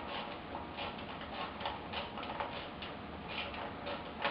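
Ratchet wrench clicking in short repeated strokes, about two to three clicks a second, as a bolt is worked loose on the engine.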